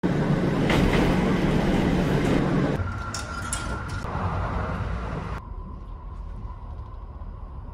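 Kintetsu Hinotori electric express train pulling into an underground station platform, loud running noise for the first few seconds. After a cut comes a quieter stretch with a steady tone and a few clicks at the train's coffee vending machine. Finally the low, steady running noise inside the moving train's cabin, with a faint steady hum.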